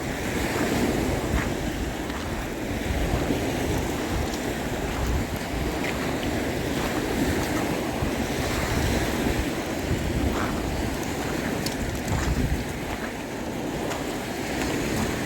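Wind buffeting the microphone in uneven gusts over the steady wash of small waves on a Puget Sound beach.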